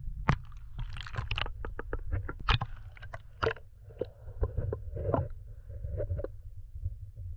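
Underwater sound picked up by a camera held beneath a river's surface: a muffled low rumble of moving water with irregular clicks and knocks, then bubbling gurgles from about four seconds in.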